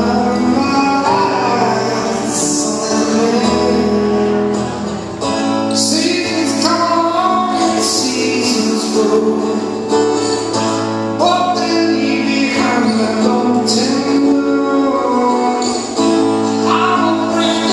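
A man singing with his own acoustic guitar accompaniment in a live solo performance, the vocal coming in phrases every few seconds over the guitar.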